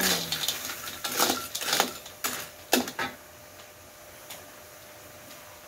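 Metal spatula stirring sea snails in their shells in a wok, scraping the pan and clattering the shells in several sharp strokes over the first three seconds. A faint steady hiss follows.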